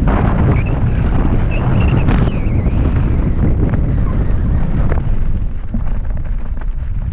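Wind buffeting a helmet-mounted camera during a fast mountain-bike descent on a gravel trail, with tyres rolling over loose stones and short knocks and rattles from the bike. A few brief high squeals come in the first few seconds.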